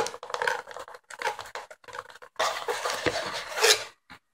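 Cardboard scraping and rubbing as hands work an inner cardboard piece out of a small cardboard box, with a knock at the start and a louder stretch of scraping in the second half.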